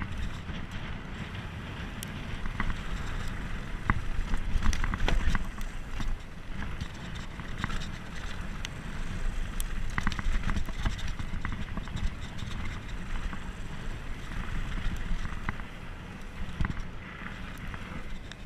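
Mountain bike rolling fast down a dirt and rock trail: the tyres crunch over the loose surface, and the bike clatters with many short knocks over bumps and rocks. Wind buffets the camera's microphone throughout as a low rumble.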